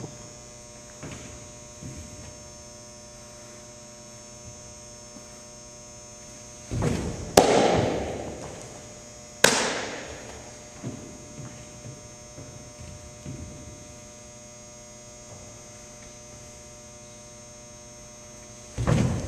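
Steady electrical hum in a large echoing gym, broken by one pitch about seven seconds in: a thud as the pitcher strides off the portable mound, then a loud sharp pop of the baseball into a catcher's mitt that rings on in the hall. A second sharp smack follows about two seconds later, and another thud and pop come at the very end.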